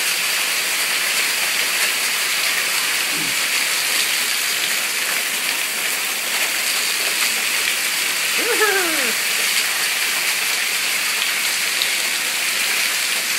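Hail coming down steadily, ice pellets pouring off a roof edge where a gutter clogged with hail overflows: a steady, even hiss.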